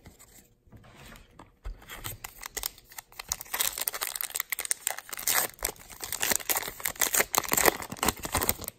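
Foil wrapper of a trading-card pack being crinkled and torn open by hand: a dense run of crackling that starts about two seconds in and is loudest in the second half.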